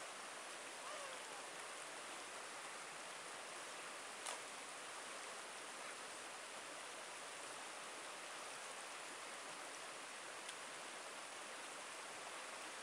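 Shallow rocky creek running steadily over stones and small riffles, with one sharp click about four seconds in.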